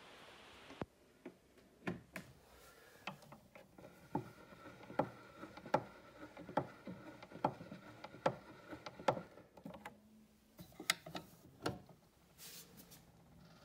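Hand crank of a wind-up gramophone being turned to wind its spring motor: regular clicks a little over one a second, with a few sharper knocks near the end.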